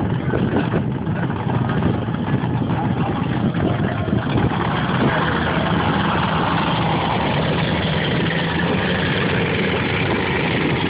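High-performance powerboat's engines running at low speed, then the engine note rises steadily about five seconds in as the boat is throttled up and pulls away.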